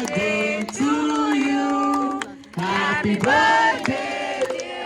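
Music with singing voices: long held sung notes that slide between pitches, with short gaps between phrases.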